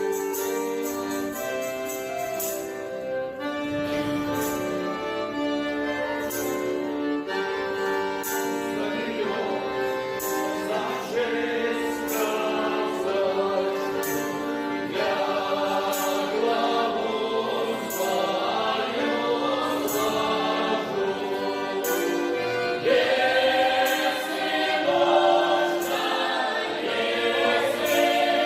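A group singing in chorus over instrumental accompaniment, with a regular percussive beat; it grows louder about two-thirds of the way through.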